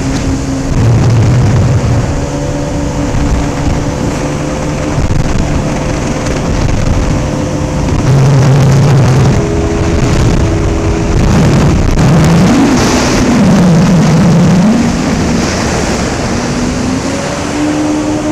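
Personal watercraft engine running under way. Its pitch holds steady for long stretches and then shifts with the throttle, wavering up and down a couple of times about two-thirds of the way through.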